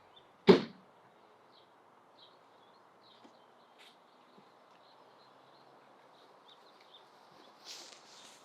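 A single loud thump about half a second in, then quiet outdoor ambience with faint bird chirps, and a brief rustle near the end.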